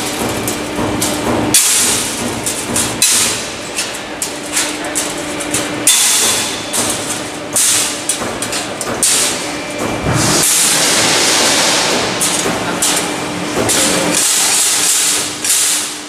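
Stainless steel sheet metal clattering, rattling and scraping as a CNC-punched part is knocked and levered free from the sheet with a metal bar: repeated sharp metal knocks over a loud hiss, with a steady machine hum underneath.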